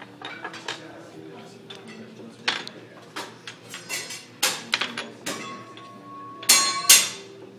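Metal hibachi utensils clinking and clacking against a steel griddle, a run of sharp knocks with the two loudest near the end and one metallic ring held for about a second just before them.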